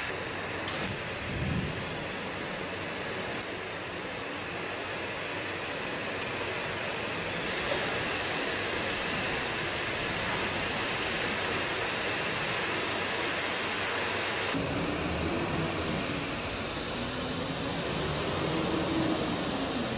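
TIG welding arc on stainless-steel pipe: a steady hiss with a high-pitched buzz, its tone shifting abruptly a few times.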